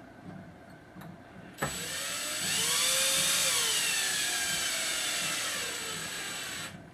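Drill driving a beadlock ring screw into an RC crawler wheel. It starts about a second and a half in and runs for about five seconds, its motor whine rising and then easing down before it stops.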